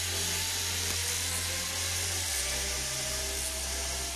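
Zipline trolley pulleys running along the steel cable: a steady hiss with a faint whine that slowly rises in pitch.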